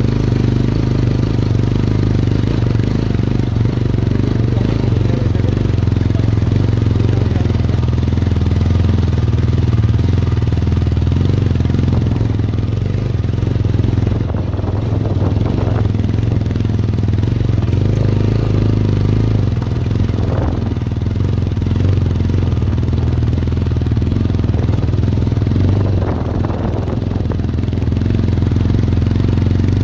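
Motorcycle engine running steadily while riding over a rough dirt road.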